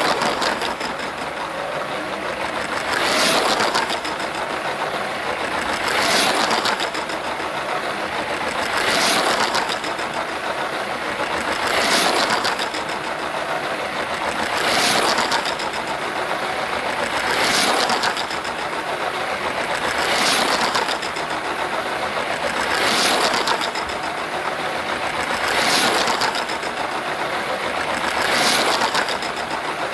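LEGO City Passenger Train (set 60197) running on plastic track: a steady motor-and-wheel running noise that swells about every three seconds as the train comes round its small loop close by.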